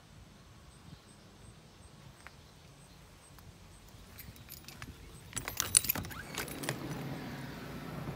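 Keys jingling and metal door hardware clicking for about a second and a half, some five seconds in, as a cabin door is unlocked and opened. A low steady hum follows near the end.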